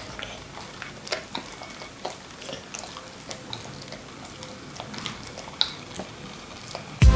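A beagle chewing food, with irregular crunches and small clicks from the bites.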